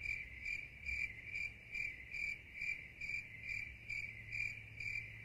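Cricket chirping sound effect: a high chirp pulsing evenly about twice a second. It serves as the comic 'crickets' cue for an awkward silence.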